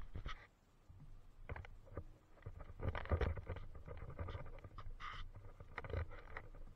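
Handling noise from a moving, body-mounted action camera: irregular soft knocks and rubbing against the mount, with a short scrape about five seconds in.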